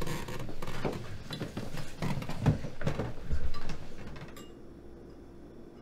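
A child's muffled vocal noises and scuffling at a dinner table while food is forced into her mouth, in uneven bursts for about four seconds. Then it goes quiet, with faint clinks of spoons against ceramic bowls.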